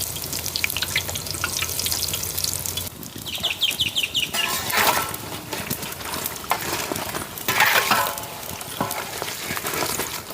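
Battered bajji deep-frying in a large pan of hot oil, the oil sizzling as they are stirred and turned. About three seconds in there is a quick run of high, short falling chirps, and there are louder bursts of clatter and noise near the middle and toward the end.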